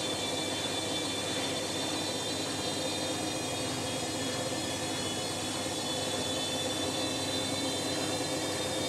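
Electrolux EWF9042R7WB front-loading washing machine running at a steady speed: a steady motor whine of several tones over a rushing hum.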